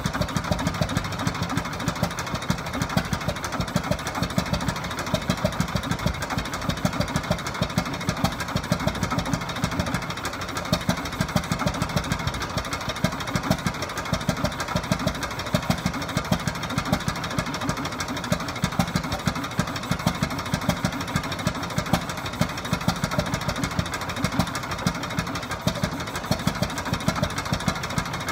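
Antique Eagle 16 hp engine running steadily: a continuous rapid mechanical beat with regularly recurring sharper firing peaks.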